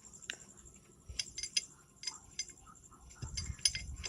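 Irregular light metallic clinks and taps of a nut and hand tools being fitted on a motorcycle clutch hub, with a couple of dull knocks near the end.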